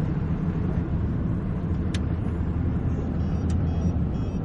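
Steady low engine and road rumble heard inside a moving car's cabin, with two short sharp clicks about two and three and a half seconds in.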